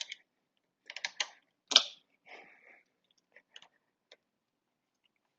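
A few short clicks and knocks at irregular intervals, the loudest a little under two seconds in, with light scraping between: a motorcycle foot peg being pushed down against its return spring and worked into its bracket to line up the pivot-pin holes.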